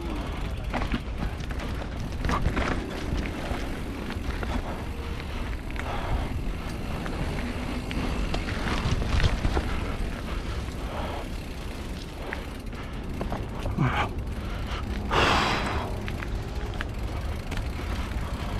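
Nukeproof Scout 290 hardtail mountain bike ridden over dirt singletrack: tyres rolling over dirt and roots with a steady low rumble, and the chain and frame rattling in scattered clicks and knocks. About 15 s in comes a brief, loud rush of noise.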